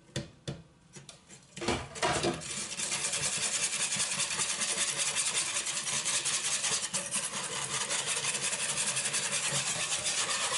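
Wire whisk beating a liquid egg-yolk and lemon mixture in a small saucepan: a few clicks and knocks in the first two seconds, then fast, steady whisking strokes against the pan.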